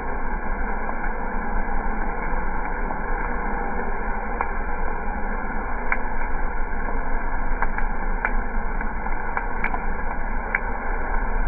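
Freshly roasted coffee beans pouring out of a drum roaster into its cooling tray and being churned by the stirring arms: a steady rushing rattle over the machine's running motor and fan. Scattered sharp clicks, more of them in the second half.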